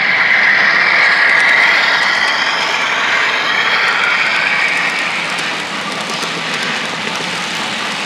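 Model train passing close by. A high whine from the locomotive falls in pitch over the first few seconds as it goes past, then the freight cars' wheels make a steady rolling clatter on the track.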